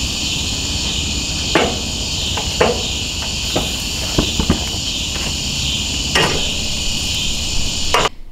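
A loud, steady chorus of night insects trilling, with about seven sharp metal clacks of grill tongs striking the grill grates and a metal roasting pan. All of it cuts off suddenly just before the end.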